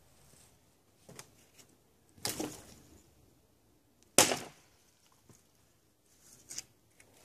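A hatchet chopping dry dead wood poles: a rough crack and clatter of wood about two seconds in, then a single sharp, loud chop about four seconds in, with lighter knocks before and after.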